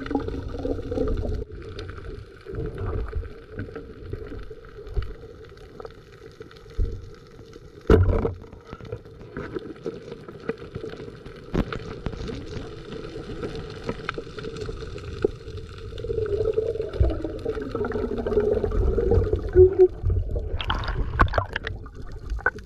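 Underwater sound picked up by a diving camera during a night spearfishing dive: muffled water movement and low irregular thumps, a single sharp knock about eight seconds in, and a muffled wavering hum near the end.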